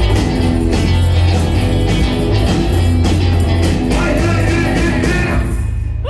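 Live rock band playing loud, with electric bass, drums and tambourine; the music drops away near the end.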